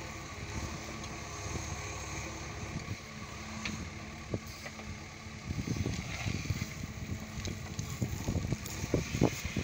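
JCB 3DX backhoe loader's four-cylinder diesel engine running under load as the backhoe digs. From about halfway in, irregular knocks and clatter of the bucket working the soil join in, loudest near the end.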